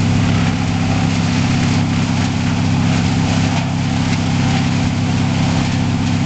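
Wood chipper's engine running steadily with an even low hum.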